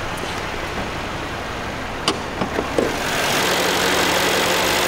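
Mercedes-AMG C63 S 4.0-litre twin-turbo V8 idling steadily, with a few sharp clicks about two seconds in as the hood is released and lifted. About three seconds in, the idle becomes louder and fuller with the hood open.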